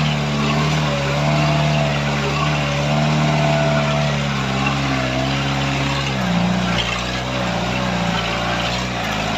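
Off-road Jeep's engine running as it drives, heard from inside its bare metal rear tub, the engine note wavering and shifting slightly higher about six seconds in.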